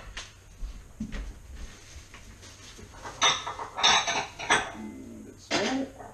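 Dishes clattering and knocking together in a kitchen cupboard as a bowl is pulled out, in a few short bursts about three seconds in and again near the end.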